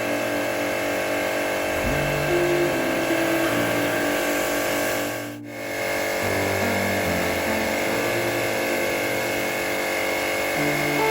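Electric pressure washer running, its motor and pump making a steady hum, briefly dipping about five seconds in.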